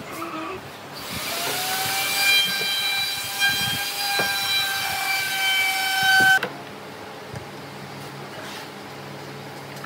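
A power tool's electric motor whining at a high pitch: it spins up about a second in, runs steadily for about five seconds and cuts off abruptly, leaving a faint low hum.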